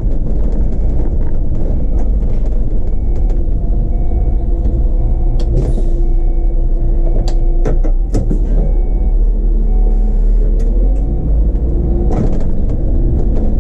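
City bus running on the road, heard from inside: a steady low engine and road rumble with scattered rattles and knocks. The engine tone climbs gradually about two-thirds of the way through as the bus picks up speed.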